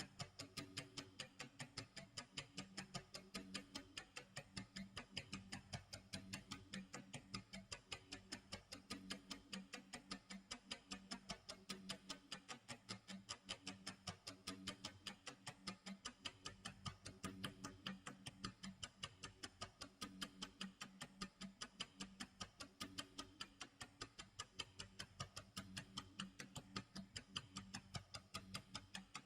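Clock tick-tock sound effect: a steady, even run of ticks, several a second, over a faint low steady tone.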